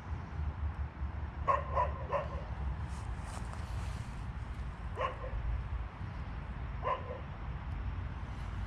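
A dog barking in short yaps: three quick barks about a second and a half in, then single barks near the middle and toward the end. A steady low rumble runs underneath.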